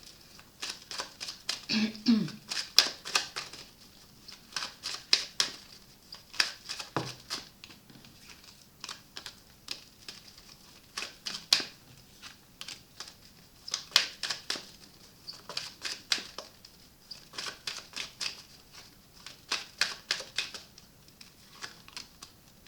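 Tarot cards being shuffled and handled: a long run of irregular crisp clicks and snaps of card stock.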